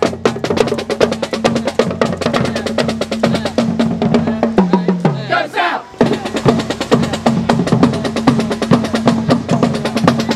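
Marching band drumline playing a fast cadence: rapid snare and tenor-drum strokes over bass drums, with low held brass notes that step down in pitch for a moment near the middle.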